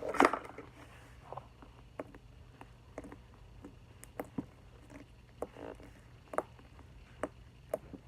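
Fluffy, over-activated slime being squeezed and stretched by hand for ASMR, giving irregular small pops and clicks every half second to second, the loudest just at the start.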